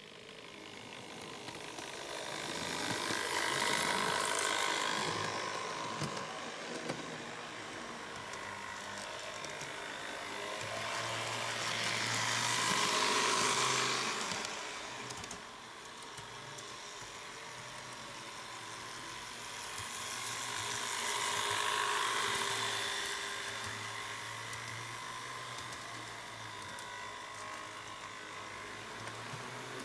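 Model railcars running on the layout's track: a steady whir of small electric motors and gears with wheel noise on the rails, swelling loud three times, about nine seconds apart, as the models come past close by and falling away between.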